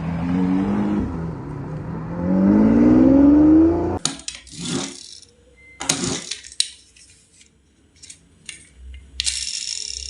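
A car engine revving sound effect that climbs in pitch for about four seconds and then cuts off abruptly. It is followed by scattered plastic clicks and rattles of toy handling.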